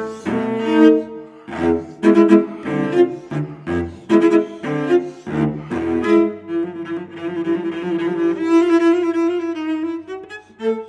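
Solo cello played with the bow: short, sharply attacked strokes and chords for about six seconds, then a long held note with a lower note sounding steadily beneath it.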